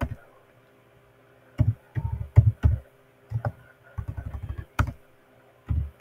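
Computer keyboard being typed on in short runs of keystrokes. After about a second and a half of quiet they come in four bursts.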